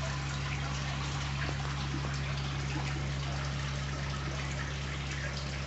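Steady trickling of water in aquarium tanks over a low, steady hum.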